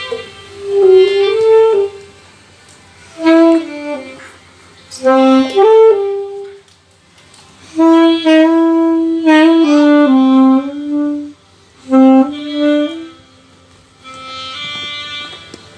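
A saxophone playing a melody in six short phrases with brief pauses between them, the last phrase quieter.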